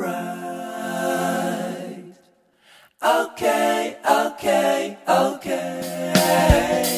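Background music: unaccompanied singing, one long held note, a brief break about two seconds in, then a run of short sung phrases.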